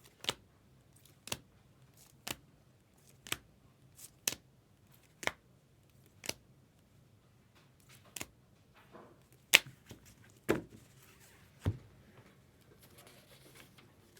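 A series of sharp clicks or taps, evenly spaced about one a second, then a few irregular ones with a louder click and two heavier knocks near the end.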